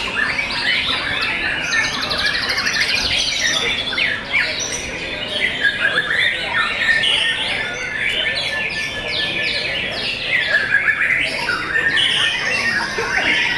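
White-rumped shamas (murai batu) singing, several birds at once: a dense, unbroken mix of varied whistled phrases, rapid trills and harsh notes.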